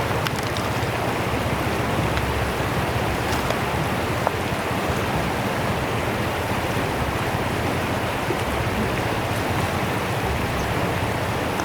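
Fast-flowing river water rushing and splashing in a steady, unbroken wash, with a few faint ticks from the spray.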